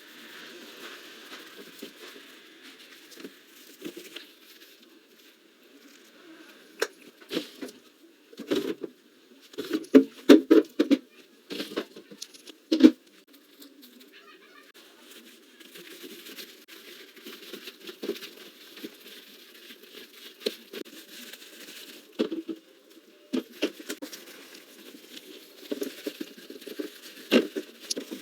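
Scrubbing the inside of a refrigerator with a soapy shampoo and washing-powder mix: a soft rubbing hiss with scattered knocks and clicks, which come in a dense cluster around the middle and again near the end.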